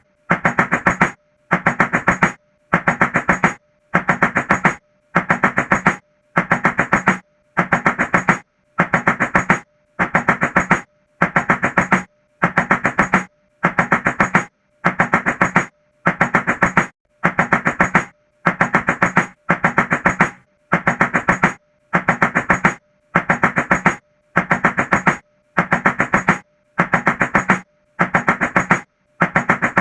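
Rapid knocking on a door in short bursts of quick blows, repeating evenly about once a second with brief silences between, like a mechanical loop.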